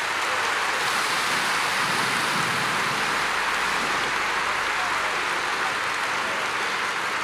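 Large stadium crowd applauding: a dense, steady wash of clapping.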